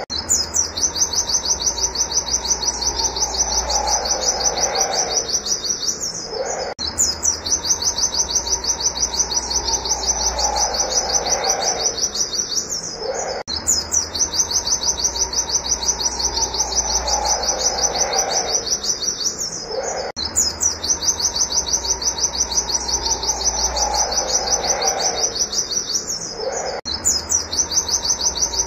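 A white-eye (pleci) singing a rapid, unbroken string of high 'wit wit' notes in runs of about six seconds, each broken off by a short pause. A fainter, lower warbling sound and a low hum run under it.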